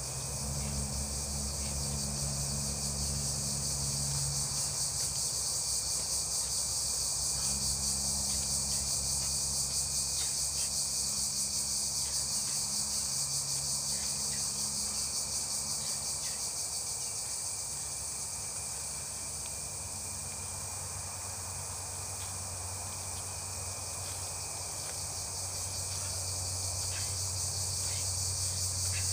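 A steady, high-pitched chorus of insects chirring in vegetation, with a low steady hum underneath that shifts pitch now and then.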